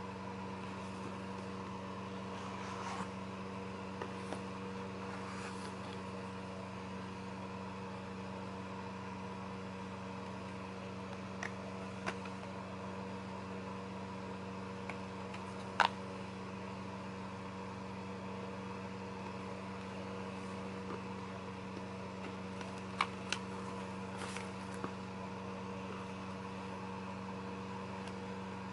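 A steady hum, with a handful of light taps and clicks from cardboard and plastic disc packaging being handled: the sharpest a little past halfway and a pair near the end.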